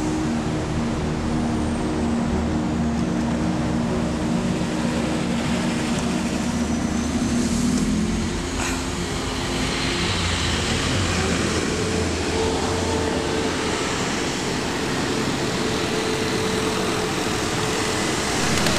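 Road traffic: a steady wash of passing cars with a continuous engine hum.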